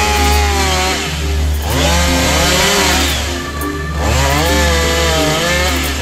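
Two-stroke chainsaw cutting into a large burnt tree trunk, its engine pitch rising as it revs and dropping as it bogs down in the cut, about three times over.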